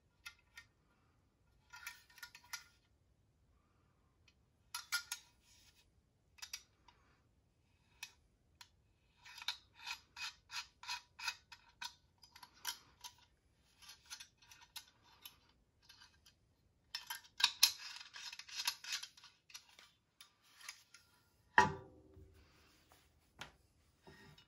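Small metallic clicks and ticks from the hinged screw cap of a stainless steel flask being turned and handled, in short quick runs of about five ticks a second. A single low thump near the end, the loudest sound, as the flask is set down on a wooden table.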